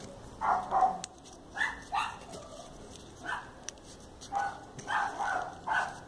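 Repeated short animal calls in the background, about a dozen in six seconds, irregularly spaced.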